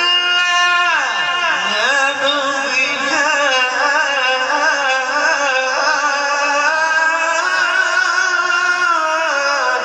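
A male Quran reciter (qari) chanting in melodic tajweed, drawing out one long ornamented vowel. The pitch glides down and back up about a second in, then wavers around a held note. The note drops and breaks off near the end.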